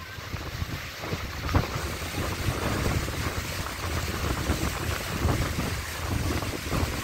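Wind buffeting the microphone, with the wash of surf breaking on the shore behind it.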